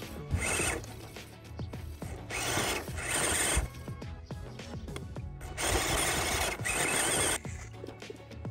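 Electric scale RC crawler's motor and geared drivetrain whirring in three spurts as its tyres grind and spin over dry dirt clods.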